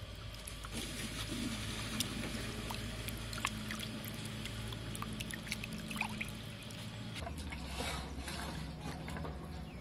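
Water sloshing and trickling in a steel bowl as raw chicken drumsticks are rubbed and rinsed by hand, with small splashes and clicks. A little after seven seconds the texture of the sound changes.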